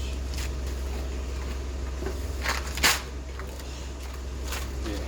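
A few short clicks and scrapes of parts and tools being handled during a motorcycle oil change, the loudest a little under three seconds in, over a steady low hum.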